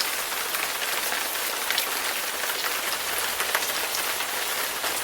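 Steady hiss dotted with many small crackling ticks, even and unbroken, with no voices over it.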